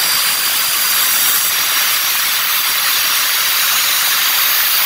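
Handheld electric marble cutter with a vitrified-tile blade cutting through a black granite strip: a loud, steady, high grinding whine of the blade in the stone. The tile blade is used for a clean cut edge that does not chip.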